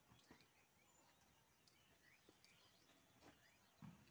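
Near silence: faint outdoor ambience with a few faint bird chirps and soft ticks, and one soft low thump near the end.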